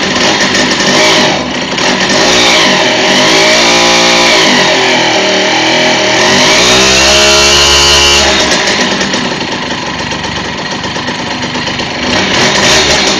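Simson moped's two-stroke single-cylinder engine running and revved up and back down twice, with a high squeal above the engine note that rises and falls with the revs. The squeal comes from the clutch or primary drive of the freshly rebuilt engine and is heard only with a gear engaged and the clutch let in.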